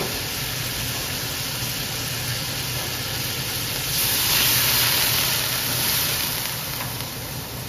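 Meat sizzling in a hot wok, then, about four seconds in, a ladle of broth poured into the wok sets off a louder hissing rush of steam that eases off over the next couple of seconds.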